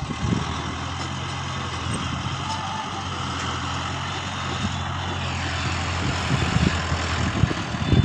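Mahindra Novo 605 tractor's diesel engine running steadily under load as it pulls a three-disc plough through stony soil, with a broad rushing noise over the engine and a few knocks near the start and near the end.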